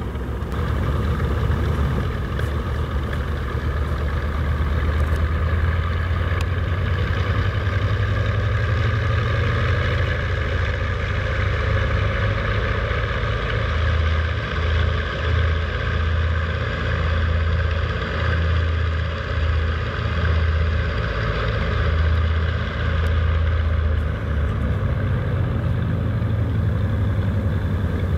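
B-25 Mitchell's two Wright R-2600 radial engines running at low power on the ground, a steady deep drone that throbs unevenly for several seconds partway through.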